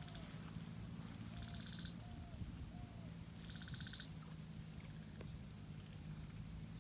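Small animal calls in a quiet outdoor ambience: two short, rapidly pulsing trills and four brief hooked call notes in the first few seconds, over a steady low hum.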